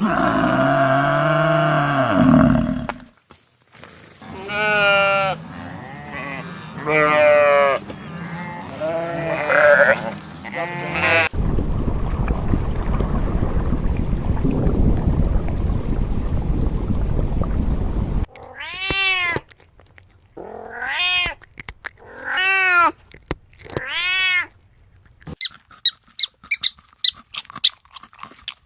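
A string of different animal calls, one after another. It opens with a long call, then come several wavering calls, a stretch of low rough noise and four rising-and-falling cat meows, and it ends with rapid high chirps.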